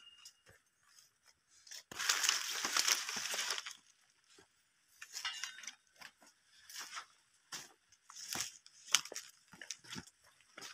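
Footsteps crunching through dry fallen palm fronds, with leafy undergrowth brushing past. A long burst of rustling comes about two seconds in, then scattered crunching steps.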